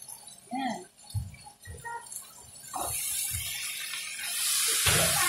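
A few light knocks of a slotted spoon in a non-stick pan, then onion, pork and tomato sizzling as they are stirred. The sizzle starts about three seconds in and grows louder a second later.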